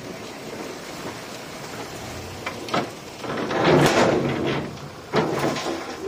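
Loose soil and rock sliding and tumbling, with a loud rushing crash about halfway through and a shorter one near the end.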